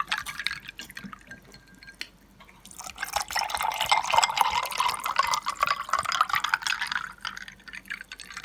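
Orange juice being poured into a glass, a steady pouring hiss from about three seconds in that tails off near the end.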